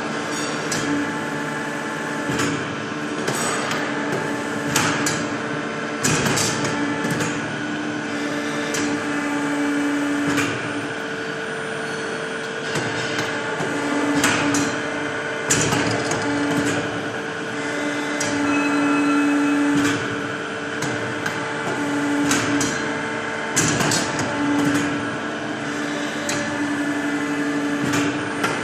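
CNC pipe bending machine running through its cycle: a motor hum that switches on and off in stretches, with scattered clicks and knocks throughout.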